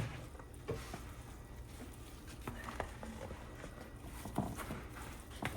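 A knife cutting up peeled hard-boiled eggs, making faint, irregular knocks about once a second.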